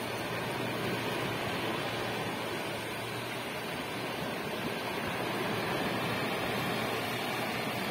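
Sea waves breaking offshore and washing up over a sand-and-pebble beach: a steady rush of surf that swells a little about halfway through.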